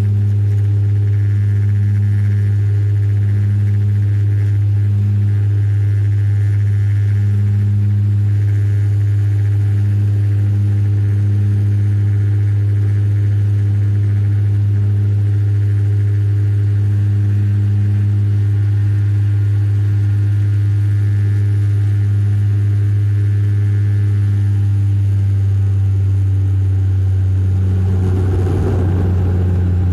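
Cabin drone of a De Havilland Canada Dash 8-400's Pratt & Whitney Canada PW150A turboprop and six-blade propeller, heard beside the engine during the climb after take-off: a loud, steady low hum. Near the end the hum drops slightly in pitch and a brief rush of noise swells up.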